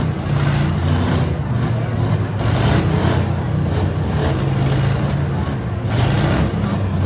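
V8 demolition derby cars' engines running, a steady low drone with a rough, noisy wash over it.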